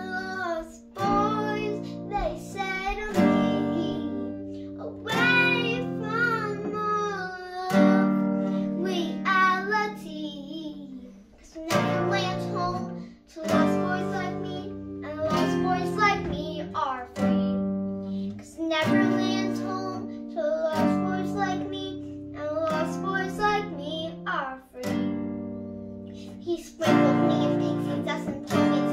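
A young girl singing while playing chords on a nylon-string classical guitar with a capo, the sung lines coming in phrases with short breaks between them.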